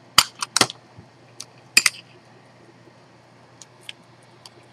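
Sharp metallic clicks and clinks from an antique pocket watch's metal case being handled: several in the first two seconds, then a few faint ticks near the end.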